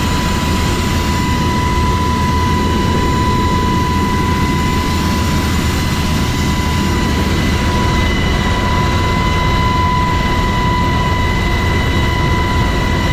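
HH-60 Black Hawk helicopter heard from inside the open cabin while hovering: steady, loud rotor and turbine engine noise with a constant high whine.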